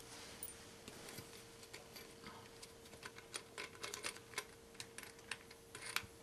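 Faint, irregular small clicks and taps of wing nuts and bolts being unscrewed and pulled from the blade ends of a PVC-pipe buck saw frame, busiest about halfway through and again near the end.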